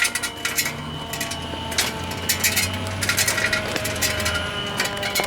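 Irregular clicks and clinks of small hard objects being handled, over a faint steady high tone.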